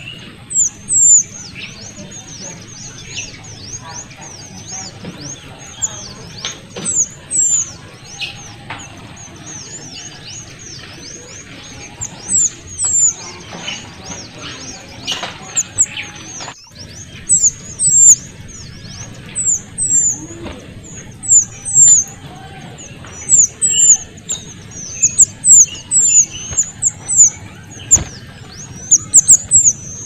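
Kuniran (mantenan kecil), a small songbird, calling: very high, thin, squeaky chirps given in quick runs of several notes, repeated every second or two and coming thicker toward the end.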